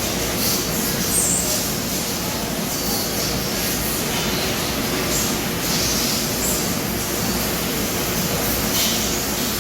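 H860B industrial vacuum cleaner running steadily, with brief hissing rushes every so often.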